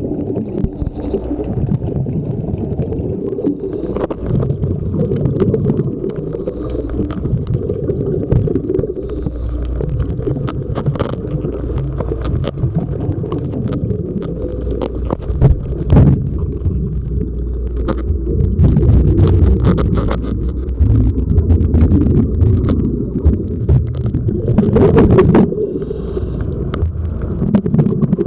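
Diver's breathing heard underwater through a camera housing: a steady low rumble of regulator breathing and exhaled bubbles, with several spells of hissing near the end. A few sharp knocks, likely the housing touching the hull, come through about four, eleven and sixteen seconds in.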